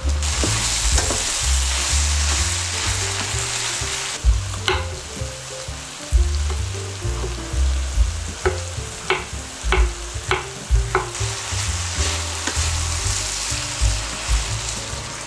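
Food sizzling in a hot frying pan while it is stirred, with a quick run of sharp taps against the pan about two-thirds of the way through.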